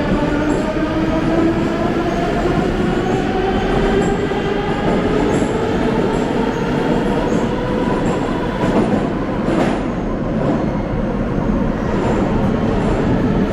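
Moscow Metro train running, its electric traction motors whining as a stack of tones that rise in pitch through the first half while the train gathers speed, then level off and ease slightly, over a steady rumble of wheels on rail.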